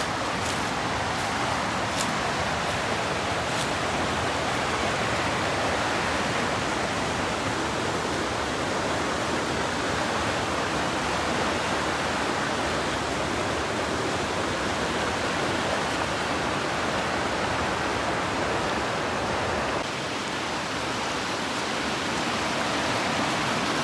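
Rushing water of a creek's rapids pouring over rocks: a steady wash of white-water noise, dipping slightly a little before the end.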